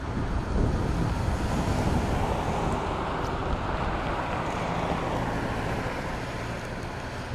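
The 12-cylinder Alco 251B diesel prime mover of an RS-18u locomotive running on a cold start, a steady low rumble while it pours heavy exhaust smoke. It is in the rough early stage of a cold start, before the engine settles into its smoother Alco burble.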